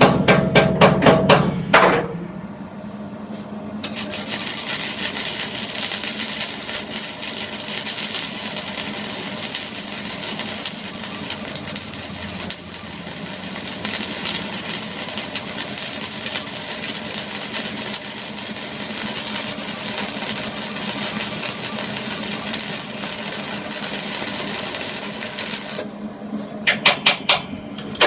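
Rapid hammer blows, several a second, for about two seconds, then a long steady hissing, crackling noise from shop work on the metal dump bed, which stops near the end for a short burst of rapid hammer blows again. A faint steady hum runs underneath.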